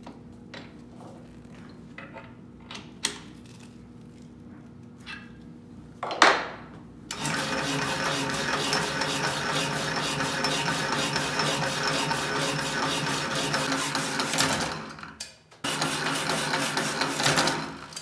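Jefferson power hacksaw cutting through metal bar stock. A few light clicks come as the bar is set, then a short loud swell about six seconds in, then the blade runs with a steady rasping cut. It drops out once briefly near the end and then stops.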